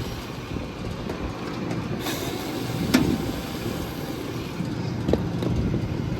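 Steady drone of neighbouring rooftop HVAC package units running, with a sharp metallic click about three seconds in.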